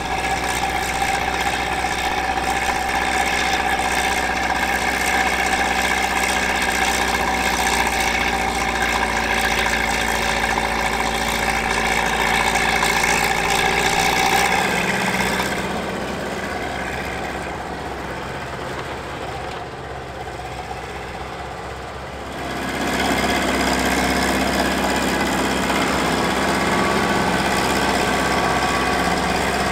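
Engine of a vintage earthmoving machine running steadily; about halfway through it goes quieter for some seven seconds, then comes back up to its earlier level.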